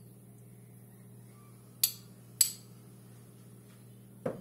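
Two sharp clinks on a stainless steel dog bowl, about half a second apart, then a duller knock near the end.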